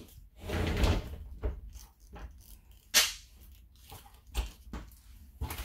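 A frosted-glass shower door is being handled by its chrome knob and loop handle. A rubbing sweep comes about half a second in. A sharp knock about three seconds in is the loudest sound, and a few lighter clicks follow.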